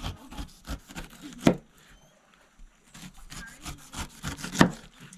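Large knife slicing the rind off a pineapple in short downward strokes, cutting and scraping against a wooden board. Two strokes, about a second and a half in and near the end, knock much louder than the rest.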